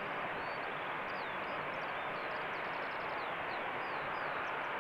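Airbus A380's four jet engines at takeoff thrust, heard from behind as a steady, even rushing noise while the aircraft rolls down the runway. Birds chirp faintly over it, in short rising and falling calls.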